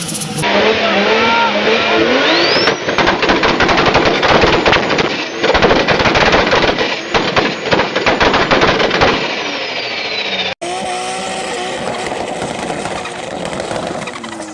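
Turbocharged car engine revving hard with rapid-fire bangs and crackles from an anti-lag system, a turbo whistle rising about two seconds in and falling away near the end of the revving. After an abrupt cut, a second engine revs up and down more smoothly.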